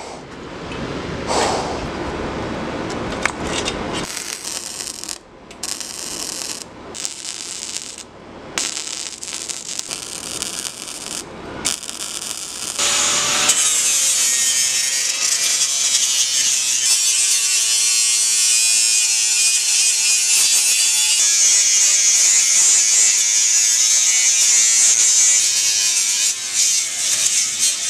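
Angle grinder cutting and grinding steel auger blades: the warped blades are being cut out and their edges ground down. It comes in short pieces with abrupt breaks at first, then runs as a steady high-pitched grinding from about 13 seconds in.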